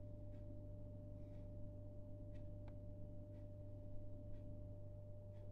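Faint steady electrical hum with a thin, steady higher tone above it, and faint ticks about once a second.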